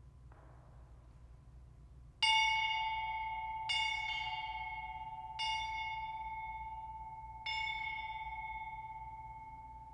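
Brass bell hung on a stand, struck four times with a small hammer; each strike rings out clearly and fades slowly into the next.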